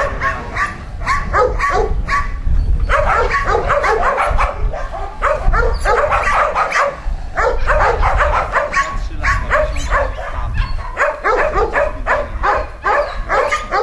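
Dogs barking and yipping almost without pause, several calls a second, with brief lulls about three seconds in and again about seven seconds in.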